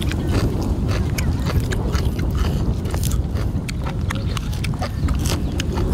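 Close-up chewing and wet mouth clicks of people eating raw beef tripe, raw liver and fresh leaves, over a steady low rumble of wind on the microphone.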